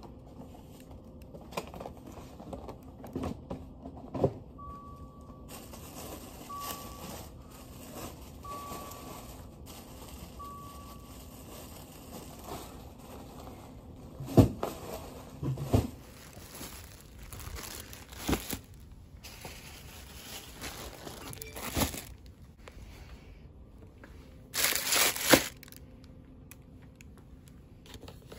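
Handling noises from packing food and drinks: packaging crinkling and items knocked and set down. About five seconds in come four short electronic beeps about two seconds apart, and near the end a loud rushing noise lasting under a second.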